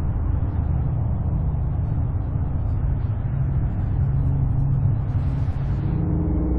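A loud, steady low rumble. About five seconds in a brief hiss swells up, then steady humming tones come in near the end.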